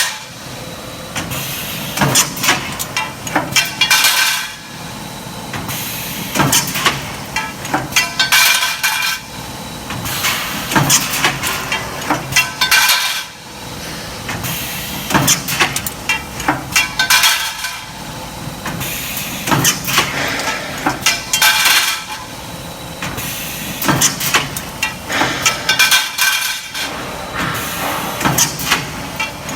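Steel shelving reinforcement roll-forming machine running, with a steady machine hum broken by a burst of rapid sharp metal clatter every four to five seconds, each burst lasting about two seconds.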